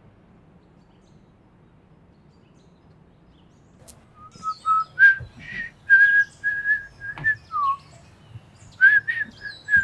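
A man whistling a tune, starting about four seconds in after quiet room tone: a run of short held notes with a few downward slides.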